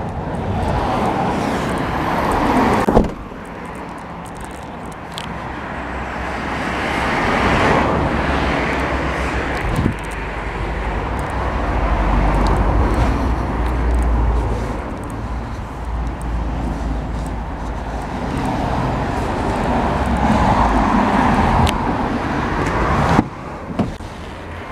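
Motor-vehicle and road-traffic noise: a steady rumbling hum that swells and fades over several seconds, dropping suddenly about three seconds in and changing again near the end.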